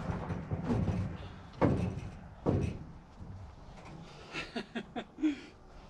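Sheet metal of a stripped 1968 Dodge Charger body banging against a stock car chassis as it is pushed down for a test fit: two loud knocks about a second apart, then a quick run of lighter taps and clanks near the end. The body is hitting the chassis and roll-cage bars where it does not yet clear.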